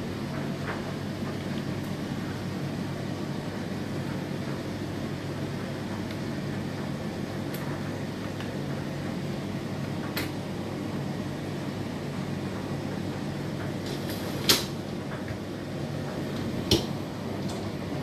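Utensils and dishwasher racks being handled: a few sharp clicks and knocks of plastic and metal, two louder ones near the end, over a steady low hum.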